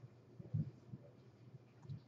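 Quiet room with two soft, low thumps, about half a second in and again near the end: light handling knocks.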